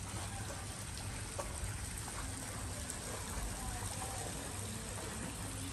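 Steady outdoor background hiss, an even rushing noise with no distinct events.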